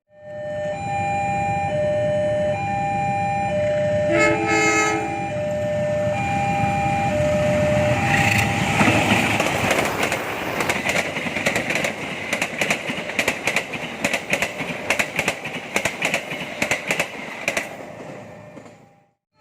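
An alternating two-tone level-crossing alarm chimes, and a train horn sounds once briefly about four seconds in. A train then passes, its wheels clacking rhythmically over the rail joints.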